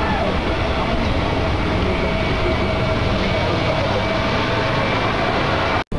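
Loud, steady vehicle rumble with a faint steady tone running through it, cut off abruptly just before the end.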